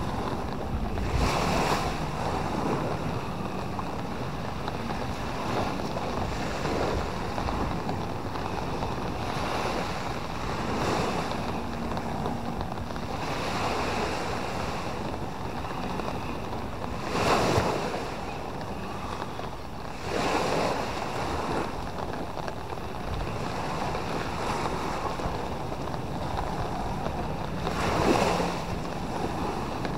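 Small waves breaking and washing up a sandy beach, a steady surf with louder breaks about two-thirds of the way through and again near the end, with wind buffeting the microphone.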